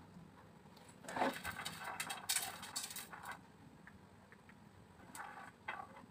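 Light clicks and rustles of fingers dropping pomegranate seeds and fruit pieces into a plastic tray of liquid jelly. They come as a cluster of small taps for a couple of seconds, starting about a second in, and a few more soft ticks come near the end.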